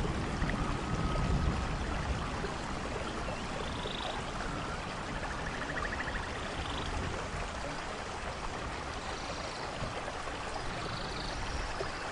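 Rainforest ambience: a steady hiss of heavy rain and falling water, with a few short, faint, high animal calls scattered through it.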